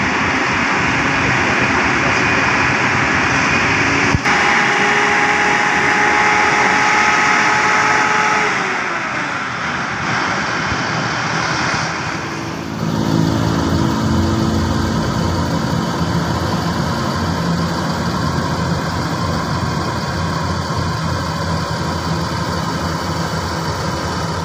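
Large diesel bus engines running close by. Through the first half a steady whine rides on the engine noise and then drops in pitch after about eight seconds as a bus moves off. From about halfway a low, steady engine note takes over.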